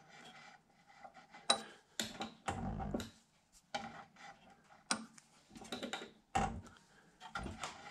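Scattered light clicks and knocks of hands handling a stopped spindle moulder's cutter head and spindle nut and nudging a wooden block on its steel table while the cutter height is checked.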